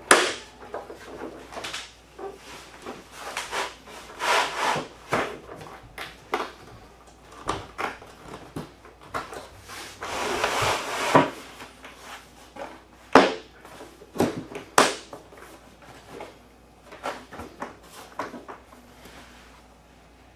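Laminate planks being handled and pressed into their drop-and-lock joints over plastic dimpled underlayment: an irregular run of wooden knocks, clicks and short scrapes, with a longer sliding scrape about ten seconds in and two sharp knocks a little later.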